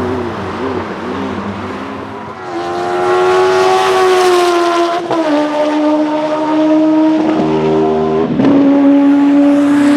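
Honda CBR1100XX inline-four motorcycle engine in a Fiat 126 prototype. It wavers in pitch for the first couple of seconds, then goes loud at high revs about two and a half seconds in, with sharp drops in pitch about five and eight seconds in.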